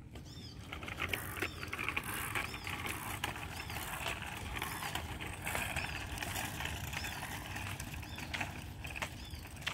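Bicycle rolling along with its freewheel hub ticking steadily, a rapid clicking that starts under a second in.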